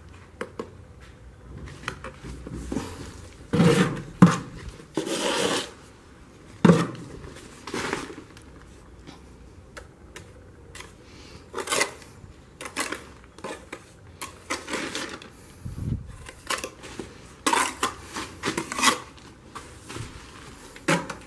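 Steel trowel scraping and tapping wet mortar into the joints between hollow ceramic breeze blocks, in irregular scrapes and sharp knocks.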